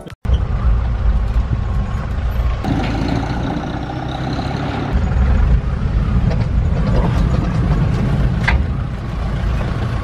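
Safari jeep driving, a steady low rumble of engine and road noise, with a short click about eight and a half seconds in.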